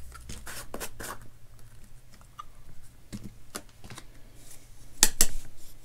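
A plastic powder paint jar being handled and its screw-on lid opened and set down on a wooden bench: scattered small clicks, scrapes and rustles, with two sharp taps near the end.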